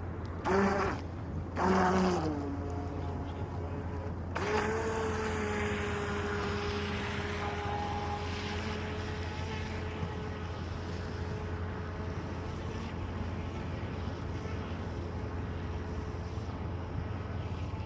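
HJ806 RC speedboat's electric motor whining at a steady pitch while the boat runs, starting about four seconds in. Short gliding sounds come before it.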